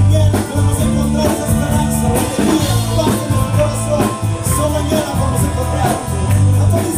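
Live band music: electric bass holding low notes under a drum kit's steady beat, with keyboard and a man singing into a microphone.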